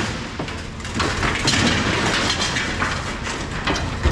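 Scrap metal being handled and unloaded: irregular metallic clattering, knocks and scraping over a steady low rumble.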